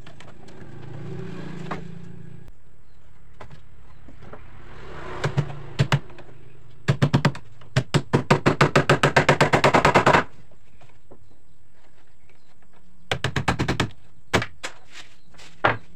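Rapid bursts of sharp knocks, about six a second. The longest run lasts about three seconds, and a shorter burst follows near the end, with a few single knocks between.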